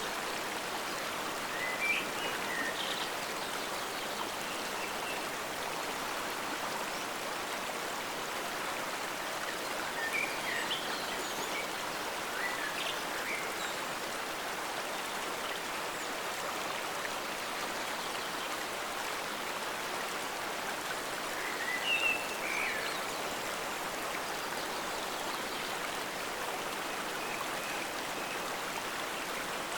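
Forest stream: water flowing steadily, an even rushing wash. A few short, high chirps come through it, about two seconds in, around ten to thirteen seconds, and again near twenty-two seconds.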